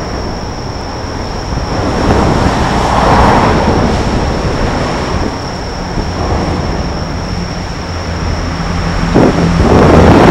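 Road traffic passing on the bridge, swelling as vehicles go by about two to three seconds in and again near the end, over a low wind rumble on the microphone. A faint steady high tone runs throughout.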